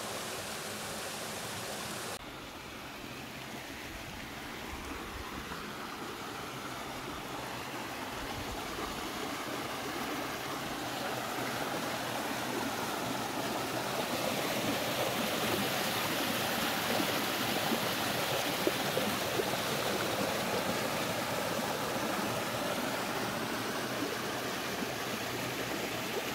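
A clear mountain wadi stream rushing over rocks and pouring through a narrow gap between boulders in a small cascade. It is a steady rush of water, with a change in its sound about two seconds in, and it grows louder from about halfway through.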